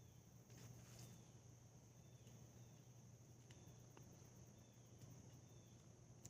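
Near silence outdoors, with faint steady high-pitched insect trilling, likely crickets, running throughout. A few faint short chirps and a couple of light ticks sound over it.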